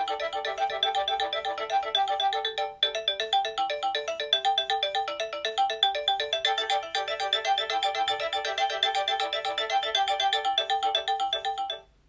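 Nokia 6230i's default polyphonic ringtone playing from the phone's speaker: a fast, busy melody of short electronic notes with a brief break about three seconds in. It cuts off shortly before the end.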